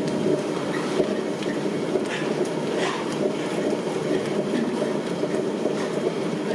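A steady, loud rumbling noise throughout, with a few faint ticks as a knife cuts meat from a mutton leg bone.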